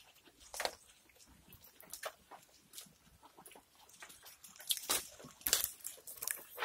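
Maltese goats feeding at hanging plastic troughs: scattered crunching, rustling and knocks, with louder knocks and rustles about five seconds in.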